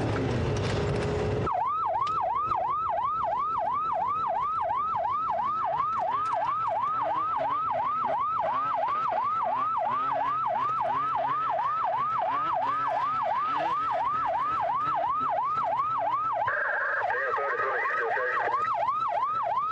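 Police car siren on a rapid yelp, sweeping up and down about three times a second, starting about a second and a half in after a burst of loud noise. Near the end a radio voice comes over it.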